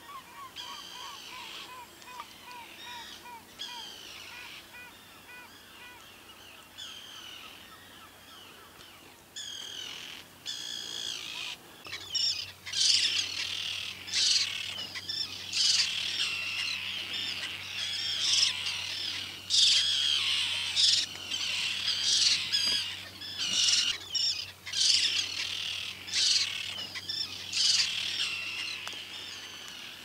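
Gulls calling again and again around their nest with eggs and a chick, the alarm calls of disturbed nesting birds. They are softer at first, with a quick run of repeated notes, and grow loud and harsh, coming in quick succession, from about twelve seconds in.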